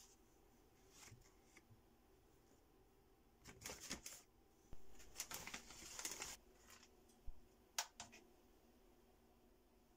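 Plastic zip bag crinkling and a metal spoon scraping through dry potassium chlorate powder, in two bursts a few seconds in, followed by two light clicks.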